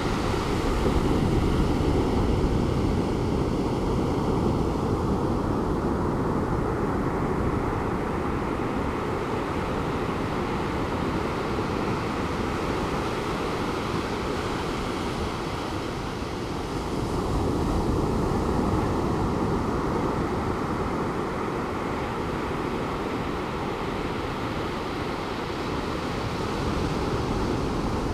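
Calm Pacific Ocean surf: a steady wash of waves on the beach, swelling twice, about a second in and again about two-thirds of the way through.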